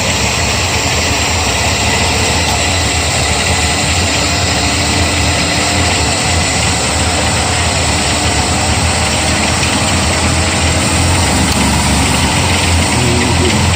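Dodge Dakota pickup's engine idling steadily, a loud even rumble with a broad rush of noise over it.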